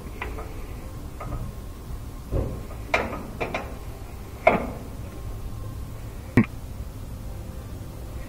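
Scattered small plastic clicks and taps, a few sharp ones, as a zip tie is fitted around the cracked plastic case of a Whirlpool washer's lid switch to hold its two halves together.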